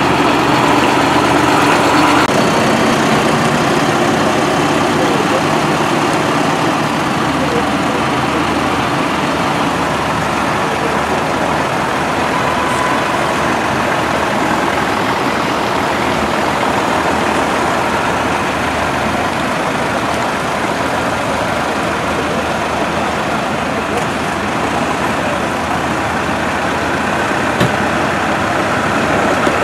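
Several farm tractors' diesel engines running as the tractors drive slowly past one after another, a steady dense engine noise.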